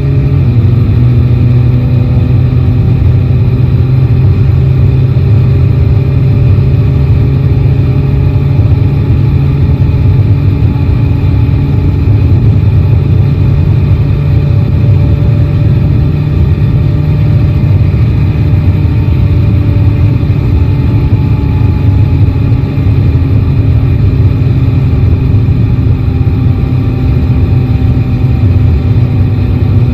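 Three-cylinder motorcycle engine at steady highway cruising speed, buried under heavy wind and road rush. Its pitch drifts slowly down and then up again with small changes of throttle.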